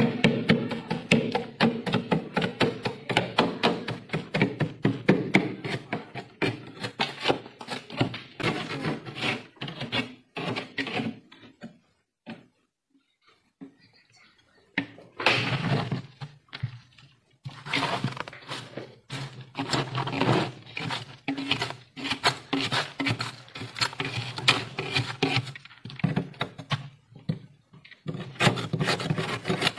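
Knife blade scraping and chipping thick frost off the inside walls of a freezer: many quick, gritty strokes in a row, with a pause of about three seconds near the middle.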